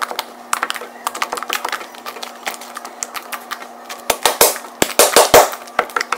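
Soft slime being poked, squeezed and stretched by hand, making quick sticky clicks and small air-bubble pops, louder and more frequent from about four seconds in.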